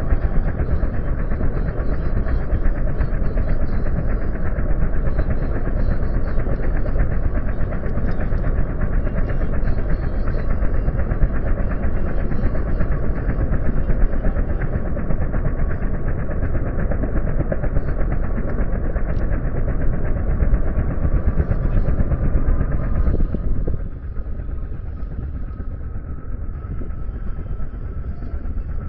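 Helicopter running at close range, a loud steady rotor-and-engine noise. About 23 s in it becomes quieter and a thin whine rises slowly in pitch.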